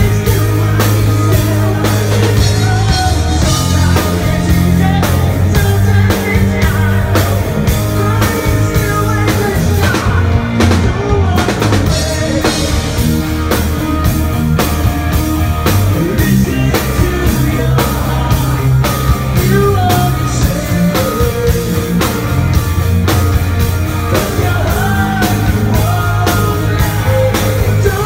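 Live rock band playing with a drum kit and electric guitar, a male lead singer singing over them, with a steady drumbeat throughout.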